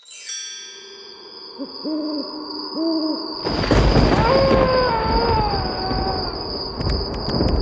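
Cartoon spooky sound effects: a sparkling chime cascade falling in pitch, then an owl hooting twice. Then a sudden loud rushing gust with a wavering, falling wail over it.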